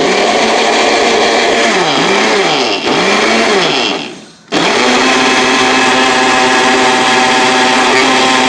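Electric kitchen mixing appliance motor blending a wet batter mixture. It runs with its pitch wavering up and down, stops about four seconds in, then starts again within half a second and runs steadily.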